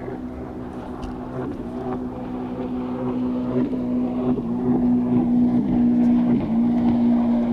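A boat motor running with a steady hum that dips briefly in pitch several times and grows louder partway through.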